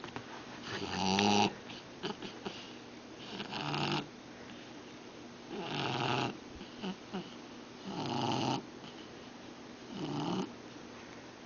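Shar-Pei dog snoring: five snores, about two seconds apart.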